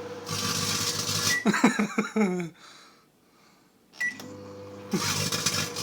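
Microwave oven running with a steady mains hum while a rewritable CD inside arcs, giving about a second of loud crackling hiss. The hum then drops out briefly and starts again with a click, and a second burst of crackling comes near the end.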